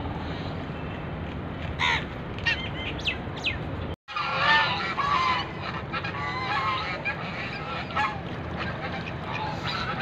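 Domestic geese and ducks calling: a few scattered calls at first, then, after a brief cutout about four seconds in, many overlapping honks from the flock.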